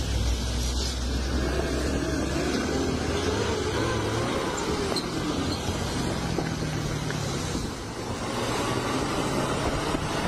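Bus engine running under load with road and tyre noise. The engine note rises and falls.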